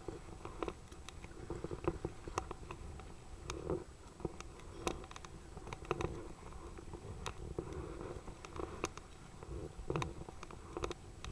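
Wind buffeting the microphone as a low rumble, with choppy waves slapping and splashing against a kayak hull as it is paddled, small sharp water slaps coming every second or so.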